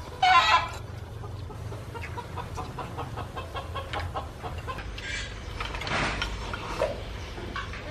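Chickens clucking, with one loud squawk near the start followed by a run of short clucks.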